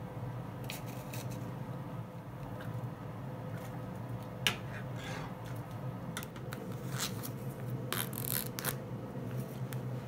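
Light clicks and scrapes of a spoon and a metal ladle working in a saucepan of broth, over a steady low hum. A sharp click comes about halfway, and a short rustle follows near the end.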